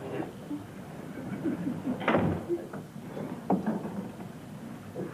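A wooden stage door being shut, with a knock about two seconds in, followed by a few lighter knocks.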